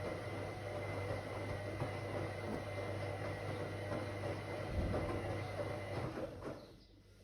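Whirlpool AWOC 8283 washing machine running mid-cycle, with a steady motor hum and light clicking from the turning drum. It winds down and stops about six and a half seconds in.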